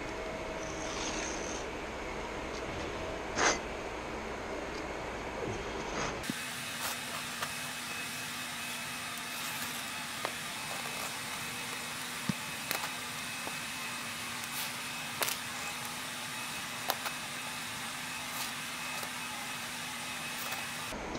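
Utility knife cutting commercial carpet along a metal straight edge: one louder short rasp of the blade about three and a half seconds in, then scattered small clicks and scrapes of the knife and straight edge, over a steady hiss.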